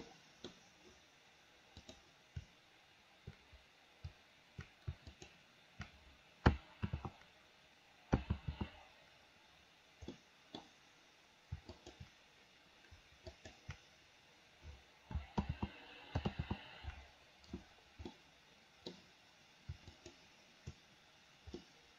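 Computer mouse clicks and keyboard key presses, irregular and scattered, with short flurries about eight seconds in and again around fifteen to seventeen seconds.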